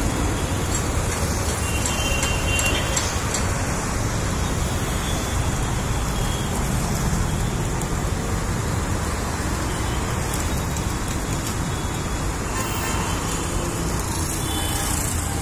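Steady low outdoor rumble with no clear events, with faint short high tones about two and a half seconds in and again near the end.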